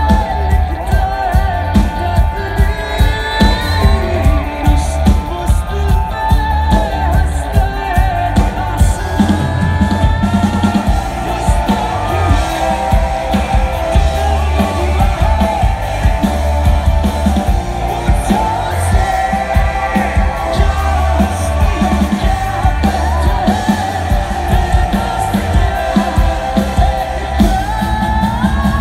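Rock band playing live through a concert PA: drums, bass and guitars under a sung lead vocal, heavy in the low end.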